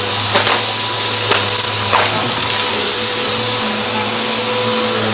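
Vacuum cleaner running steadily with a loud motor hum and airflow hiss. A few short crackles come in the first two seconds, as crunchy debris is sucked up.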